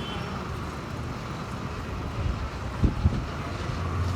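Outdoor street noise with passing vehicles running steadily, and two short low thumps about three seconds in.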